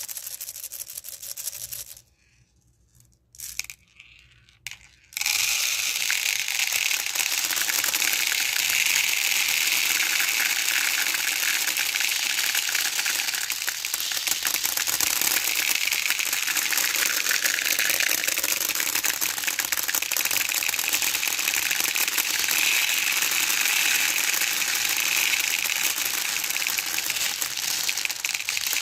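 Small beads falling and pouring in a stream, a dense rattle of many tiny clicks. A brief patter at first, then nearly three seconds of near silence broken by a few single clicks, and from about five seconds in a steady, unbroken clatter.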